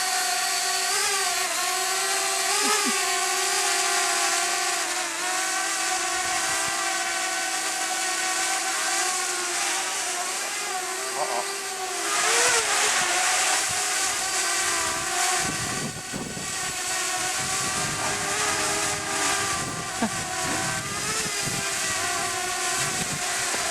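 Parrot Bebop quadcopter drone's rotors whining steadily in flight, their pitch wavering slightly as the drone holds and adjusts its position. Wind buffets the microphone in gusts from about halfway through.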